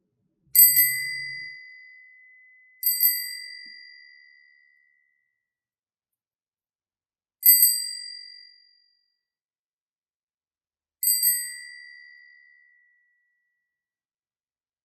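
Bicycle handlebar bell rung four times at uneven intervals, each ring a quick double strike that rings out in a clear high tone and fades over a second or two.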